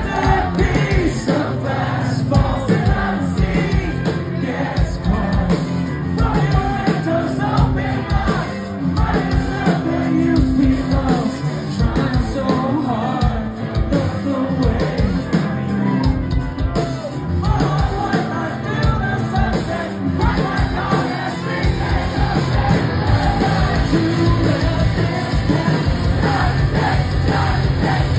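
Post-hardcore rock band playing live at full volume: electric guitars, bass and drums, with a singer's vocals sung and shouted into the microphone, heard from within the crowd.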